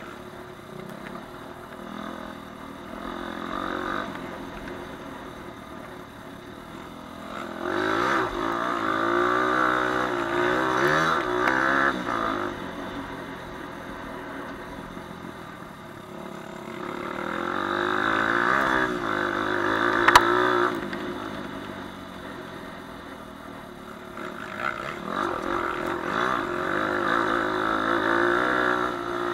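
Four-stroke single-cylinder dirt bike engine ridden off-road, pulling hard in three long surges of throttle. The pitch wavers and rises through each pull, and the engine eases off between them. A single sharp knock comes about twenty seconds in.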